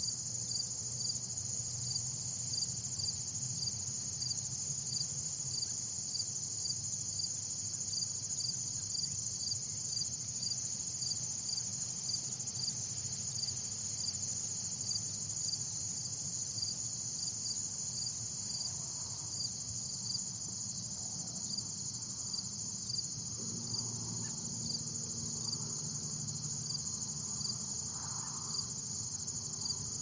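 Insects trilling steadily in a high-pitched chorus, with a faint regular pulse about twice a second.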